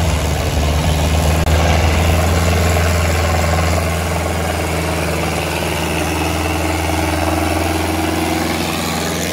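Sonalika 750 tractor's diesel engine running steadily with a low, even note that eases off slightly about four seconds in.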